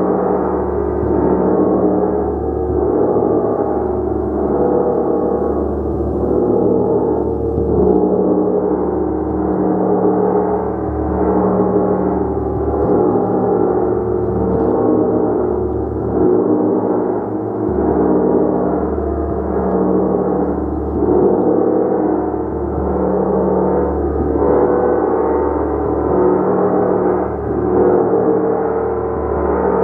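A gong being played continuously with soft repeated strikes, building a dense, sustained wash of overlapping ringing tones that swells and eases in waves every second or two.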